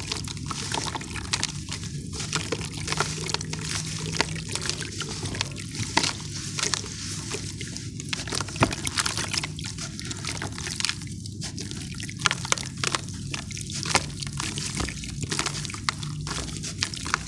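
A soaked chunk of sand and charcoal crushed and crumbled by hand in a basin of water: a dense gritty crunching and crackling with water sloshing and dripping as the pieces fall in.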